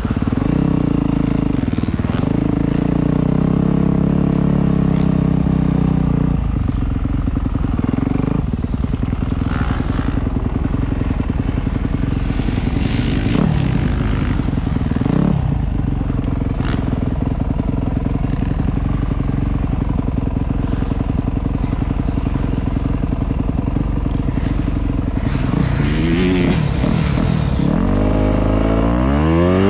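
Motocross bike engine running close up at low speed, with a couple of quick revs midway and a run of revs rising and falling near the end.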